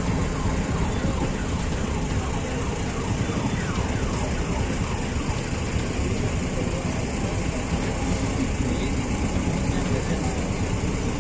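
Passenger train running past a railway level crossing, a steady dense rumble throughout. Over the first half a repeating, siren-like rising tone sounds above it, fading out about six seconds in.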